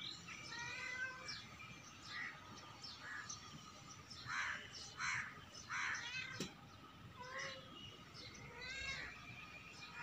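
A kitten mewing now and then, among many birds chirping, with three louder crow caws about four to six seconds in.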